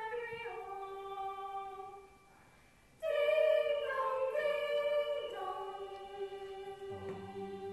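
A choir singing long held notes in several parts. The singing drops away briefly about two seconds in, then comes back louder about a second later.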